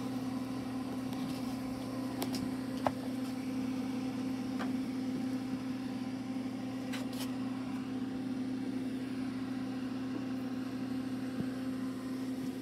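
Steady electrical hum of a Craftsman 110-volt welder switched on and idling, with a few light clicks over it.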